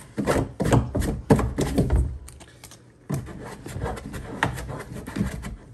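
Hands fitting a part into a hole drilled in a plastic tub: a string of sharp plastic knocks and taps, loudest in the first two seconds, then after a short lull lighter clicks and rustling as it is pressed into place.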